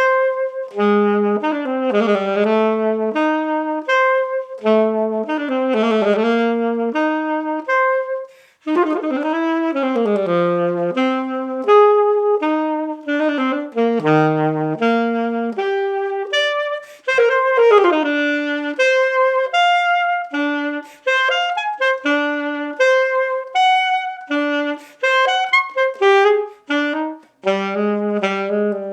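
Yamaha alto saxophone playing an unaccompanied melodic passage: smooth runs and held notes, a short breath about a third of the way in, then more detached notes.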